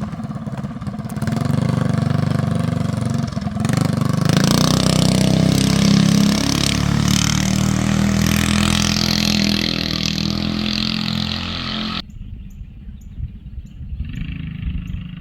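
Small gasoline engine of a homemade go-kart running, then revved up and held at high speed from about four seconds in. The engine sound cuts off suddenly about twelve seconds in, leaving quieter mixed sound.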